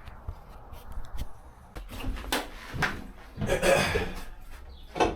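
Handling noises: a few scattered knocks and clicks and a stretch of rustling about three and a half seconds in, as tools and materials are set out.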